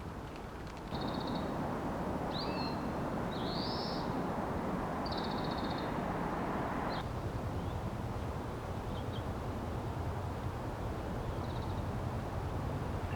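Birds giving short, high calls several times over a steady outdoor hiss. About seven seconds in, the background shifts to a lower, steady rumble and the calls thin out to a few faint chirps.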